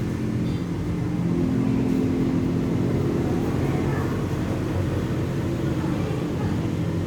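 Nissan Calibre's diesel engine idling steadily with an even, low hum.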